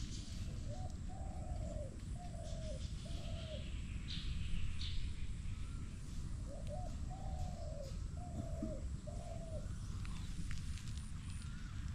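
A dove cooing: two phrases of four or five low coos each, a few seconds apart, over a steady low rumble, with a few brief chirps from other birds.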